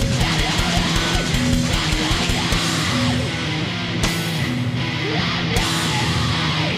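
Screamo band recording with distorted electric guitars and drums. Fast, evenly spaced kick-drum beats stop about two and a half seconds in, and cymbal crashes follow about four and five and a half seconds in.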